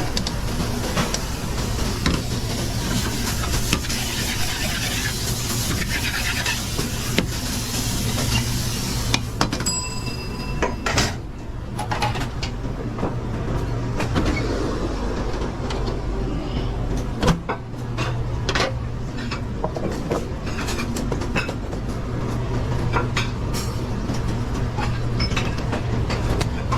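Commercial kitchen line noise: a steady low hum from ventilation, a loud hiss for roughly the first nine seconds, then repeated clattering and knocking of pans and utensils. A short electronic beep sounds about ten seconds in.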